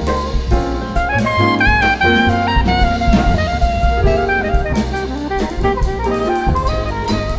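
Small-group modern jazz: saxophone playing a moving melodic line over drum kit and bass, with cymbals sounding throughout.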